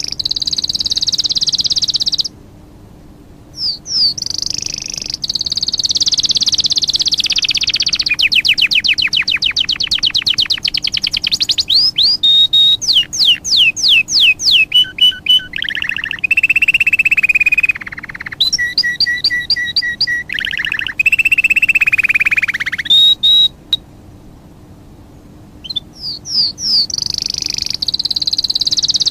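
A songbird singing a long, varied song of rapid high trills and runs of quick repeated notes. The song breaks off briefly twice, once a couple of seconds in and again about four-fifths of the way through.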